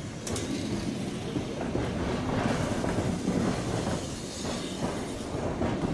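Vintage electric tram running along street track, its wheels rumbling and clattering over the rails, with a sharp click about a third of a second in. Heard in the open air from the tram's open top deck.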